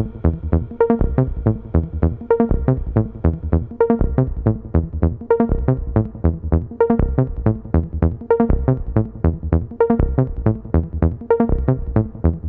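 Electronic background music with a fast, steady beat.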